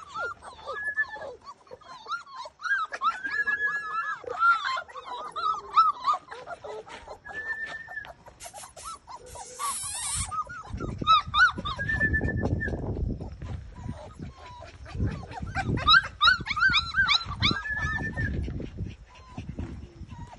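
Caucasian Shepherd puppies whining and whimpering in many short, high-pitched cries, a few of them drawn out, with a low rumbling noise under the second half.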